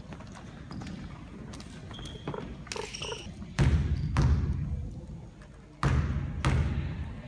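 A basketball bounced twice on a gym's hardwood floor, about two seconds apart. Each bounce is a loud thump that rings on in the hall's echo.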